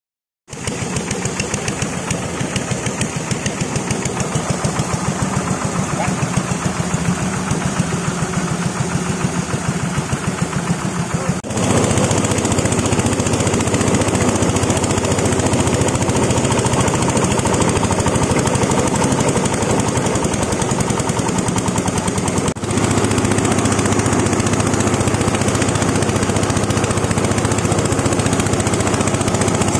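Corn cob and rice husk grinding machine running with a fast, even chattering. It starts abruptly about half a second in and gets louder at two sudden joins, about a third and two thirds of the way through.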